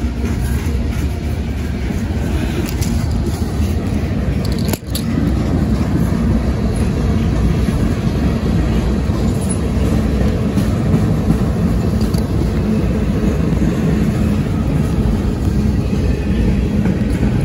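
Freight train passing close by, its cars rolling over the rails with a loud, steady low rumble. The sound briefly cuts out about five seconds in.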